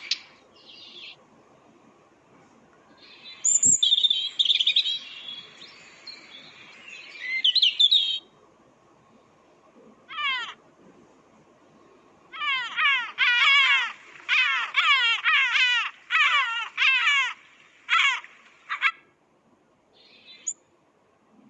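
Recorded bird songs played back one after another: a busy twittering song, then after a pause a run of short whistled notes, each falling in pitch and repeated in quick phrases. A single click comes just before the twittering starts.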